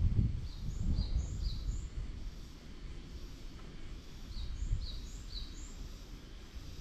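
A cat purring with a low, uneven rumble as its throat is stroked, with a bird calling in the background in two bursts of three quick chirps.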